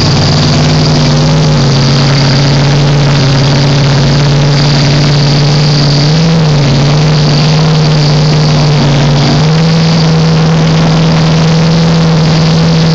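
Front-engine dragster's V8 running loud and steady at a fast idle, its note dropping a little about a second and a half in, rising briefly near the middle, then settling a touch higher for the last few seconds.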